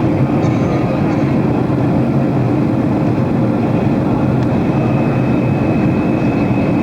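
Airliner cabin noise in flight: the steady, loud rush of the engines and airflow heard from inside the passenger cabin, with a faint steady whine above it.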